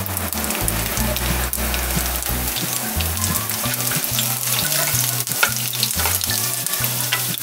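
Chopped garlic sizzling in hot mustard oil in a kadai with cumin seeds and dry red chillies, a steady crackling fry. From about halfway through, a wooden spatula stirs it, scraping and tapping against the pan.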